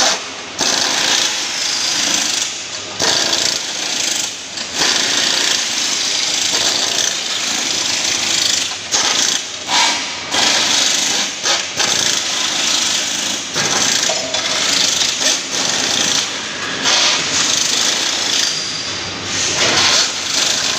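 Arc welding on an aluminium scaffolding frame: a loud, continuous crackling hiss that runs in long stretches, broken every few seconds by short pauses as welds stop and start.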